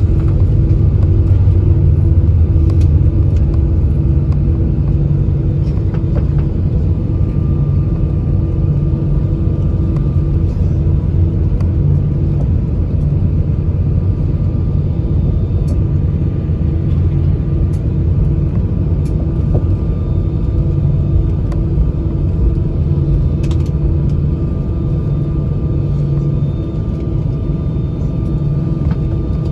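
Cabin noise inside a jet airliner rolling out on the runway after touchdown: a steady low rumble from the engines and wheels that eases a little as the aircraft slows, with a steady hum and a fainter higher tone.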